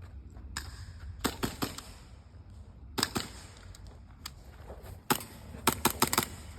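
Airsoft gun shots: sharp snaps in short groups, a few about a second in, two around three seconds, and a quick run of four or five near the end.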